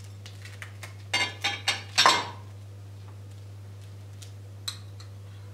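A metal spoon clinking and scraping against ceramic bowls as chopped vegetables are tipped into a glass mixing bowl: a quick run of clinks in the first couple of seconds, the loudest about two seconds in, then one faint click near the end.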